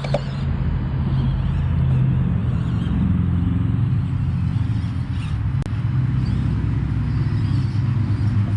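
A steady low motor drone with a hum that swells and eases slightly, and a single sharp click a little past halfway.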